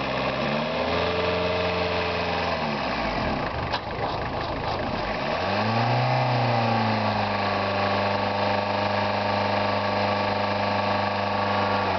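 Freshly rebuilt car engine running just after coming to life: the revs rise and fall, sag low about three seconds in, pick up again with a blip of the throttle about halfway through, then settle into a steady idle.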